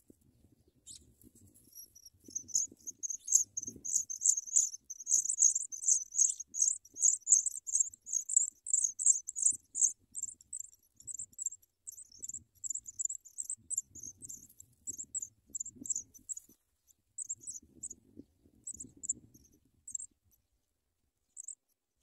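Songbird nestlings begging: a fast run of thin, very high-pitched cheeps that builds over the first few seconds, stays loud for several seconds, then thins out into scattered calls. Soft low rustling comes and goes underneath.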